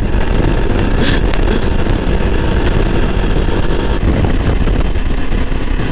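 Yezdi Adventure motorcycle cruising at highway speed: a steady rush of wind over the on-board mic, mixed with the single-cylinder engine and tyre noise.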